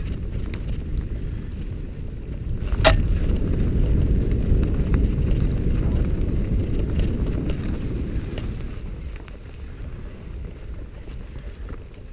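Mountain bike ridden fast on a dirt forest singletrack, heard from the bike-mounted or rider-mounted camera: wind buffeting the microphone and the rumble of the tyres over the trail. There is one sharp knock about three seconds in, and the rumble eases toward the end.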